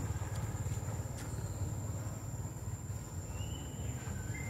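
Outdoor background noise: a steady low rumble with a constant thin high-pitched whine over it, and two brief faint chirps near the end.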